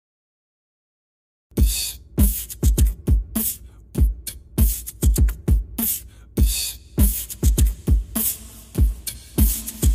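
Dead silence for about a second and a half, then background music with a steady, punchy beat.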